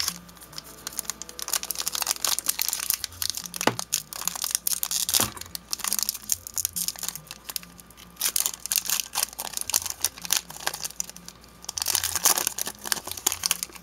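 Foil Pokémon trading-card booster pack wrapper being torn open and handled, a dense run of crackling, crinkling rustles with short lulls.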